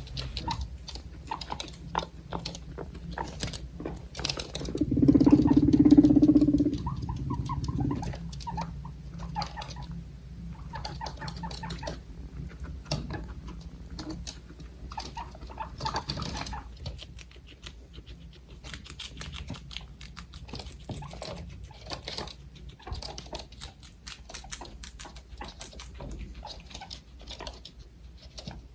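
Guinea pigs moving about and nibbling: an irregular run of small clicks and rustles. About five seconds in there is a louder, low-pitched sound lasting over a second.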